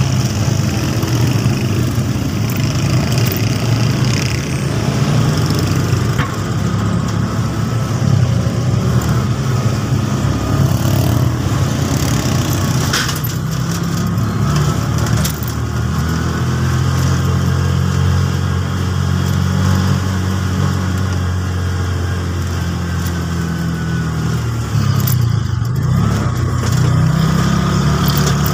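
Car engine and road noise heard from inside the cabin while driving at low speed, a steady low hum whose pitch shifts up and down with the engine speed.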